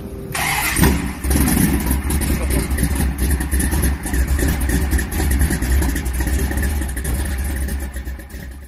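A car engine running and revving, laid over an animated logo intro as a sound effect; it comes in sharply just after the start and cuts off suddenly near the end.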